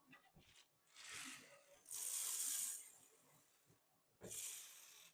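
Desiccant beads rattling and pouring in a 3D-printed plastic box, in two bursts of hissing rattle, the louder one about two seconds in. Near the end a knock is followed by a shorter burst.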